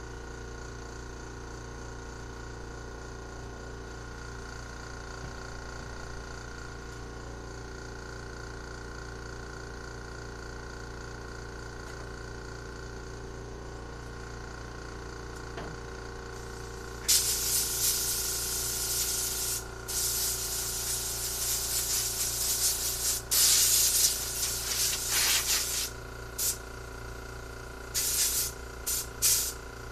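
Compressed air hissing from an air blow gun, starting a little past halfway: a few blasts of several seconds each, then a few short puffs near the end.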